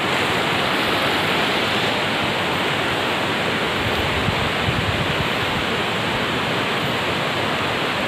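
Rushing water of a rocky stream below a waterfall: a loud, steady hiss.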